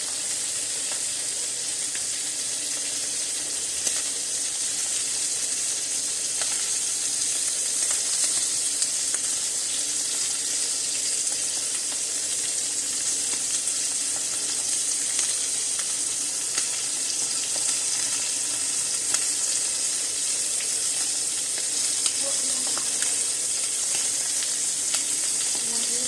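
Steaks sizzling steadily in a hot frying pan, with occasional small pops.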